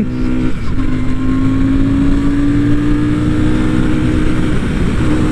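Royal Enfield Shotgun 650's 648 cc parallel-twin engine accelerating under load, its note rising slowly and breaking briefly about half a second in and again near the end, with wind noise from riding at speed.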